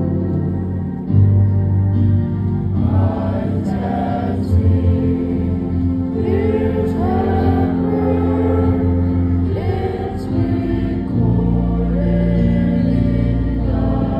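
Choir singing over held low chords, with the voices most prominent in the middle stretch.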